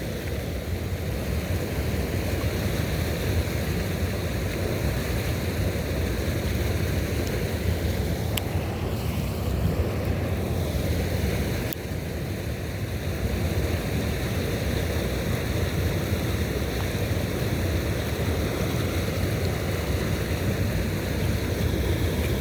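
Steady outdoor wind noise, a low rumble of wind buffeting the microphone, with a couple of faint clicks about a third and halfway through.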